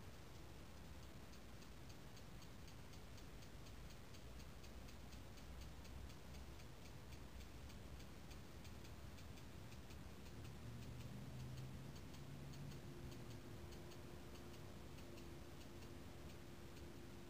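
Faint, rapid, regular ticking, several ticks a second, over low background noise. A faint low hum joins about ten seconds in.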